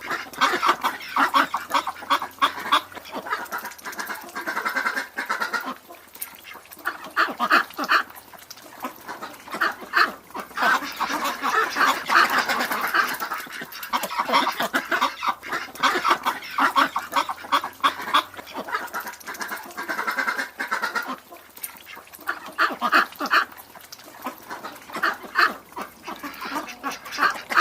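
A flock of ducks quacking, with many short calls overlapping in quick, dense runs and brief lulls between them.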